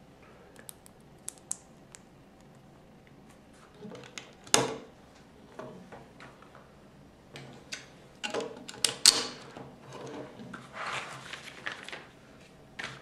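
Plastic Lego bricks clicking and clacking as they are handled and pressed together on a model car. There is a sharp click about four and a half seconds in and a flurry of clicks around nine seconds, followed by a second or so of scraping and rustling.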